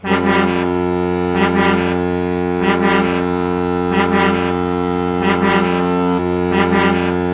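A loud, steady horn-like chord of several held tones that starts abruptly, with a brighter pulse recurring about every 1.2 seconds.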